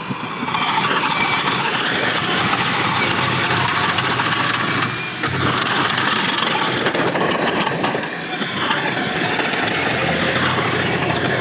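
Heavy earthmoving machinery running, a steady, loud engine-and-machine noise with brief dips about halfway through and again about two-thirds of the way in.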